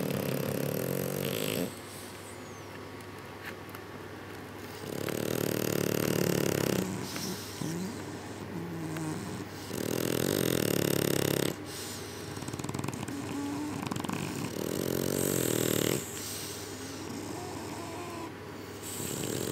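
A sleeping French bulldog snoring loudly about every five seconds, each snore lasting a second or two, with quieter wheezy, whistling breaths in between. The owner suspects sleep apnea.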